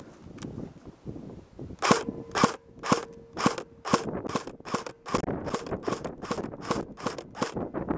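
Airsoft gun firing a string of about a dozen single shots, roughly two a second, starting about two seconds in.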